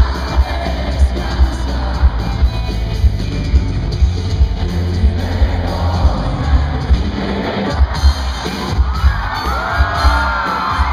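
Rock band playing live with a singer, heard from the audience: heavy, boomy bass under a steady kick-drum beat about twice a second.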